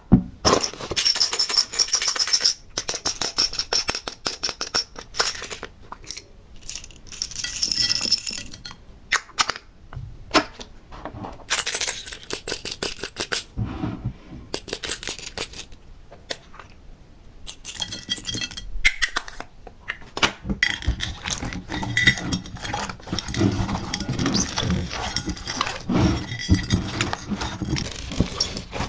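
Small decorative pieces clinking and rattling as they are handled and dropped onto slime, with sticky slime crackling and squelching. The squishing grows heavier in the second half.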